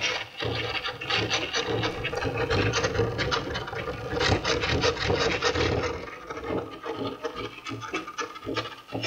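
Small DC motor driving a worm gear against a plywood gear wheel: a steady motor whine with rapid scraping clicks from the wooden teeth. It is busiest over the first six seconds or so, then thins to scattered clicks.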